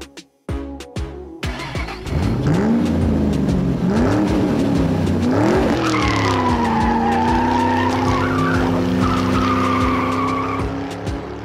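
Dubbed race car sound effect: an engine revving up through the gears three times, then holding a steady note under a long, wavering tyre squeal that fades out near the end. Background music with a beat plays in the first second or so.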